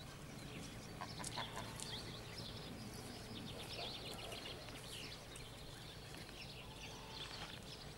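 Faint outdoor bird chirping and twittering, many short high calls throughout, over a low steady background hum.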